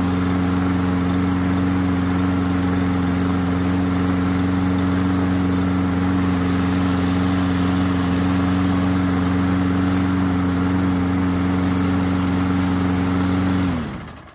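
Toro Recycler 22-inch mower's 190cc single-cylinder Briggs & Stratton engine running steadily at an even speed, then shutting off near the end and winding down to a stop.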